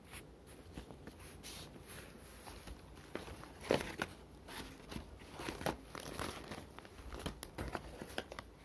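Hand rummaging through a cardboard box of colour pencils: irregular small clicks and taps of pencils and cardboard, with paper rustling, a few louder knocks midway.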